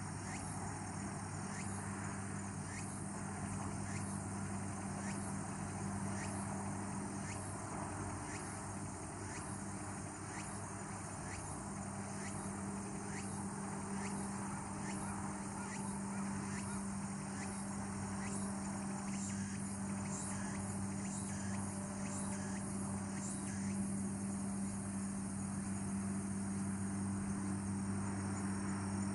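Outdoor evening ambience: a steady low hum, with a short falling chirp-like call repeated about once a second over it, typical of frogs or insects calling.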